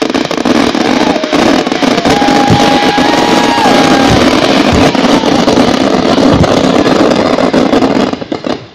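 Large fireworks fountain (gerb) burning on a barge, a loud steady rushing hiss that cuts off suddenly near the end. A few dull thumps of firework shells sound underneath, about a second or two apart.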